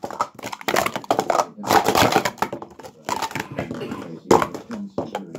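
Plastic sport-stacking cups clattering as they are stacked up and taken down at speed on a stacking mat during a timed cycle: a fast, uneven run of light clicks and knocks.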